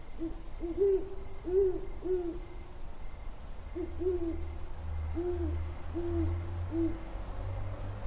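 Great horned owl hooting: two phrases of deep, soft hoots, four and then five, with a short pause between them.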